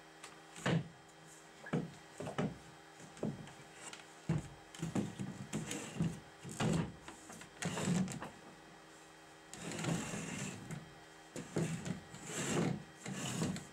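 Wooden folding chair being unfolded and set up on a wooden workbench: a string of irregular wooden knocks and clacks as the slatted frame swings on its bolt pivots and the legs bump the table, over a faint steady hum.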